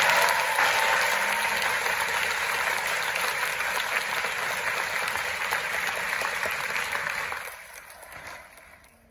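Large audience applauding, a steady crackle of many hands clapping that dies away over the last couple of seconds.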